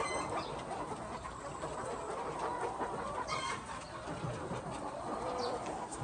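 A flock of hens clucking steadily, with a sharp, higher call at the start and another a little past three seconds in.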